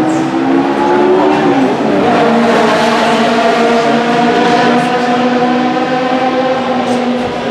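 Judd GV4 4.0-litre 72° V10 of a 2001 Dallara SP1 running at a steady fast idle. Its note eases down slightly about two seconds in, then holds level.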